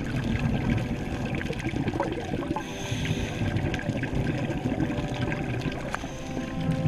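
Underwater water noise, a steady low rumble with bubbling, and a brief hiss about three seconds in.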